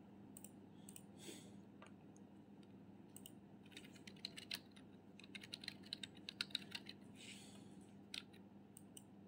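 Faint clicking of a computer keyboard being typed on: a few scattered keystrokes, then a quick run of keystrokes through the middle, over a steady low electrical hum.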